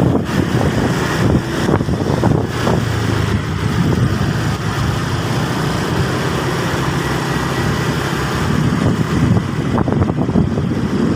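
Bus engine running steadily, a low rumble with no horn tune.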